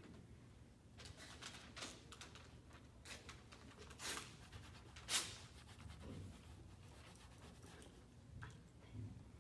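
Faint scratching of pens on paper, with a few soft taps and rustles; the loudest tap comes about five seconds in.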